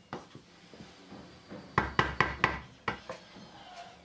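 A pan of puréed tomatoes being stirred as it heats: faint clicks, then a quick run of sharp knocks about two seconds in and a couple more shortly after, from the spoon against the pan and the thick sauce.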